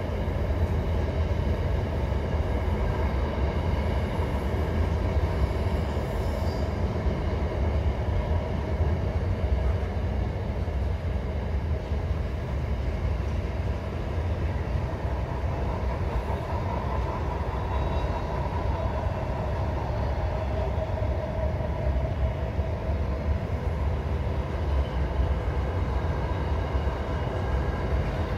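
Freight train wagons rolling steadily across a railway bridge: a continuous, even rumble that carries on throughout.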